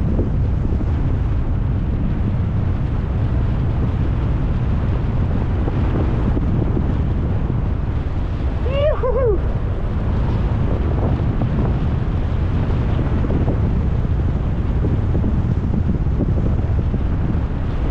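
Steady, loud wind rush on the microphone from the airflow of flying a paraglider. About halfway through, a short pitched call that glides up and down is heard briefly.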